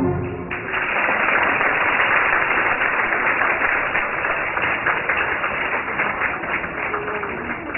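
Audience applauding, breaking out about half a second in as the ballet music stops, then slowly dying down.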